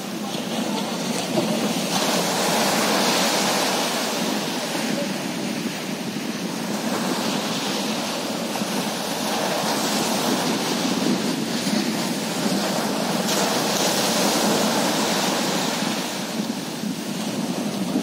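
Small waves breaking and washing up a sandy beach, the surf swelling louder and easing off several times.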